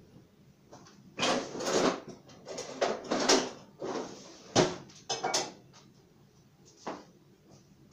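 Kitchen handling noises: a run of knocks and scrapes over a few seconds, like a drawer or cupboard being worked and things being moved on a counter, then one more short knock near the end.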